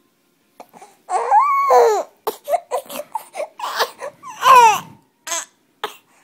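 Young baby fussing: short whimpering sounds and two longer high-pitched cries that rise and fall, one about a second in and one about four and a half seconds in.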